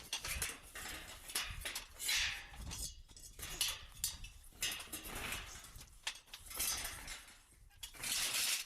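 Corrugated tin roofing sheets being lifted off and handled, giving an irregular series of metallic rattles, knocks and scrapes.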